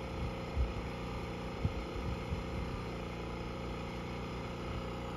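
An engine idling steadily, a low even hum, with a few soft low thumps in the first half.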